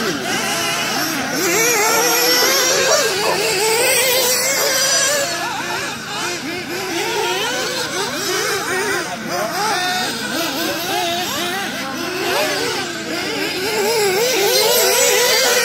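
Several radio-controlled off-road cars racing on a dirt track, their small motors whining together and constantly rising and falling in pitch as they accelerate and brake through the corners.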